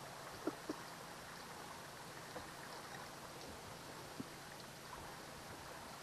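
Small motorboat moving slowly at no-wake speed: a faint steady motor hum under water washing along the hull, with two short clicks about half a second in.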